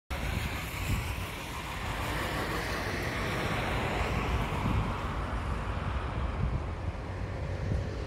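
Wind buffeting the microphone in uneven gusts, over a noisy outdoor hiss that is strongest early and fades after about five seconds.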